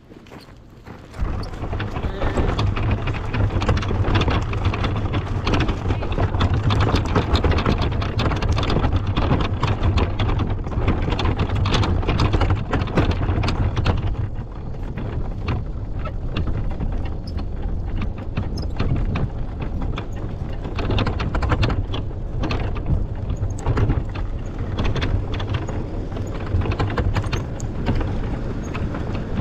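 Small wagon's wheels rolling over gravel and pavement: a steady rumble with many rattling clicks, heard close up from a camera riding on the wagon. The rumble starts about a second in.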